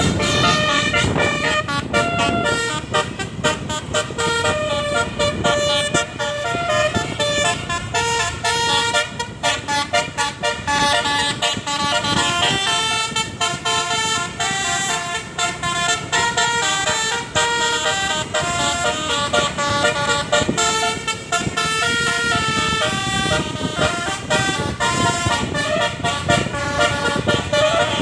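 Telolet basuri bus horn, a multi-tone musical horn, playing a fast melody of short, stepped notes without pause, over a low rumble.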